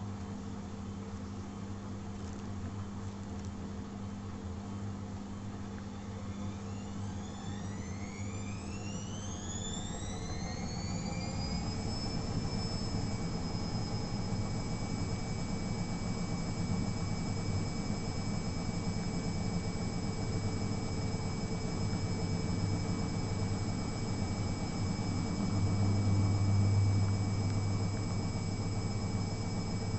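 Atlant 60U1010 washing machine speeding up into an intermediate spin: its motor whine rises in pitch over several seconds, then holds steady at spin speed over a low hum that swells briefly near the end.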